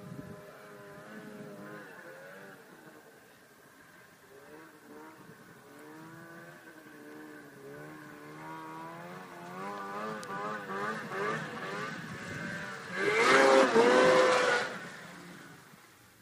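Snowmobile engines running with their speed rising and falling. The sound grows louder to a loud, close pass about 13 seconds in, then fades away.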